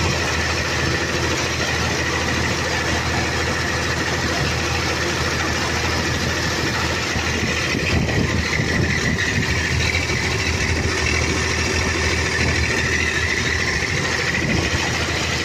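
Tractor engine running steadily while towing a Welger WSA 350 small square baler that is picking up and baling straw, the engine and baler machinery going together in one constant drone.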